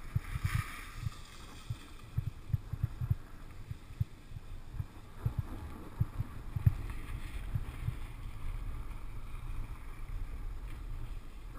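Wind and ride noise on a helmet-mounted GoPro Hero2 while snowboarding slowly downhill: a low rumble with irregular thumps as the board runs over tracked, groomed snow, with a brief hiss about half a second in.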